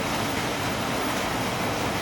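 Steady rain falling, an even hiss without distinct drops or breaks.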